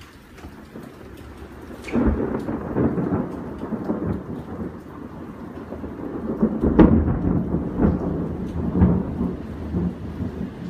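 Thunder over steady rain: a sudden sharp crack about two seconds in, then rolling rumbles that swell to a louder peak near seven seconds and die away.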